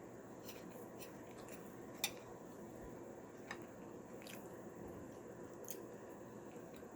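Faint sounds of a person eating: soft chewing with scattered small clicks, the sharpest one about two seconds in.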